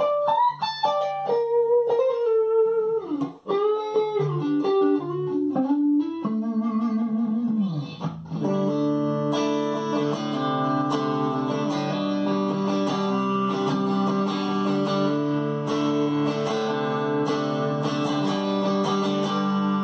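Fender Strat Deluxe electric guitar with vintage noiseless pickups played clean through a diode compressor pedal into an amp, the compression pretty transparent. Single notes with string bends at first, then from about eight seconds in, sustained strummed chords.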